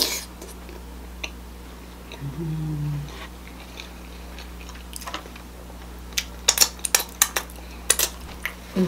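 Close-miked mukbang eating sounds: a wet smack as sauce is sucked from the fingers, a short closed-mouth "mmm" hum about two seconds in, then a run of sharp wet clicks and smacks from about five seconds on, from chewing and finger-licking over a seafood boil.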